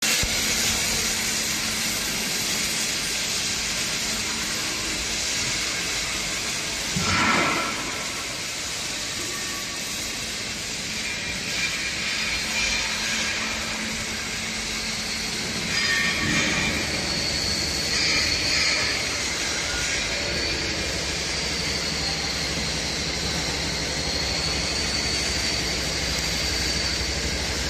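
Steady factory-hall background noise: an even hiss with a few brief louder swells and clatters, and a thin high whine over the second half.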